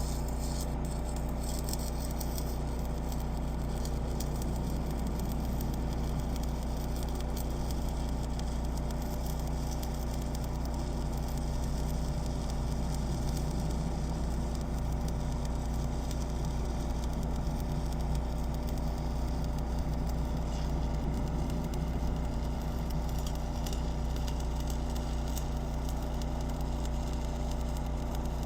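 A steady low machine hum with even, unchanging tones and faint light crackle above it.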